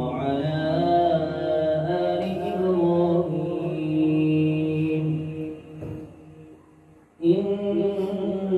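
Melodic Quran recitation by a male voice, with long held notes. It fades away about five to seven seconds in and starts again abruptly just after seven seconds.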